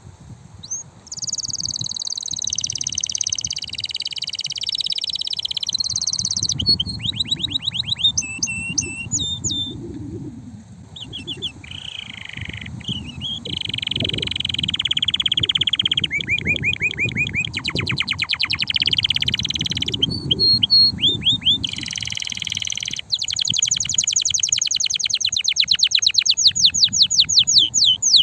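Male canary singing an excited song: phrase after phrase of rolling trills and runs of fast repeated notes, with only brief pauses between phrases.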